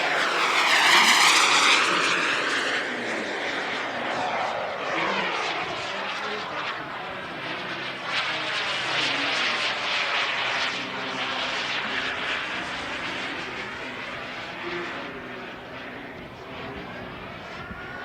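Turbine-powered RC model jet, the Hangar 9 Aermacchi MB-339, flying past. It makes a steady turbine whine whose tone sweeps up and down as it passes, loudest about a second in and slowly fading after.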